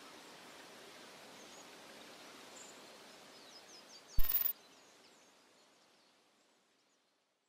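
Faint outdoor ambience, a steady hiss, with a few faint high bird chirps in the middle. About four seconds in there is one short, loud thump; then the ambience fades out to silence.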